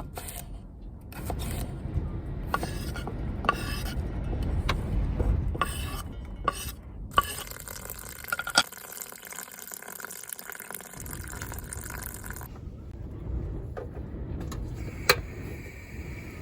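Light clinks and knocks of cookware, with a liquid-like hiss from about seven seconds in, over a steady low wind rumble.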